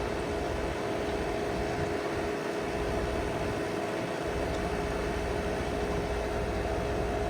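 Outdoor air-conditioner condensing unit running under load: the condenser fan's steady rush of air with an even hum from the compressor, with no change while its amp draw is measured.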